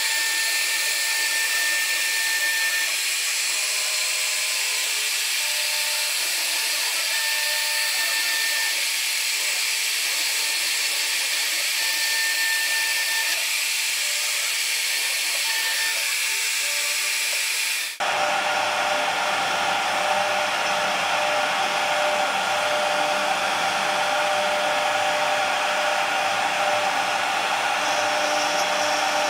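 CNC wood router spindle running as it carves wood: a steady high whine with hiss, some tones coming and going with the cut. Partway through, the sound switches abruptly to a different, fuller machine whine with a steady tone.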